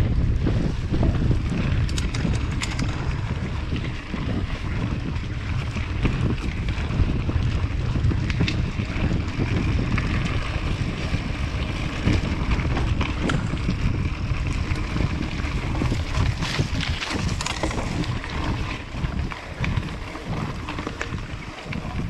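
Wind buffeting the camera microphone over the continuous rattle and clatter of a hardtail mountain bike riding down a rough trail, with scattered sharp knocks and clicks from the bike.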